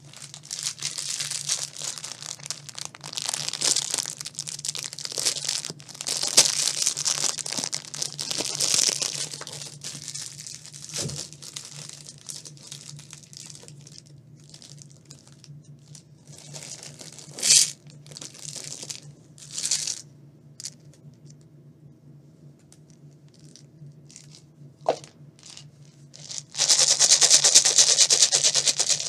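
Crinkling and tearing of candy wrapping, the foil of a chocolate egg and a small plastic packet of candies being handled and opened, in bursts, with a louder spell of rustling near the end.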